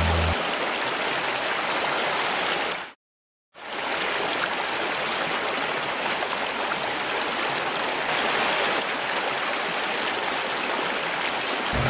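Steady rushing of creek water pouring down into a round, funnel-shaped whirlpool hole. The sound drops out completely for about half a second around three seconds in.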